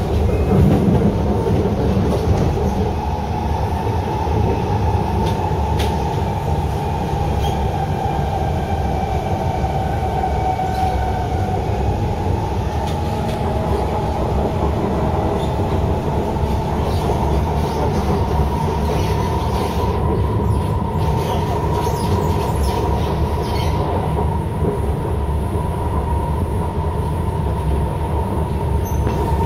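Kawasaki Heavy Industries C151 metro train heard from inside the car while it runs between stations: a steady rumble of wheels on rail and car body. A faint whine drifts in pitch through the first dozen seconds, and a few clicks come through later on.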